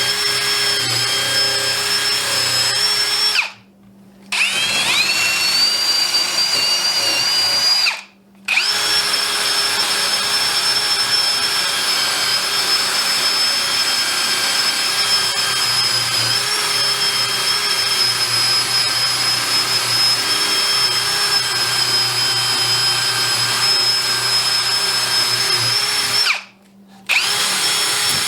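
Drill spinning a brass wire wheel against steel clamp bars, scrubbing dried wood glue off the ridges: a steady high motor whine over a scratchy brushing sound. The drill stops briefly three times and spins back up each time.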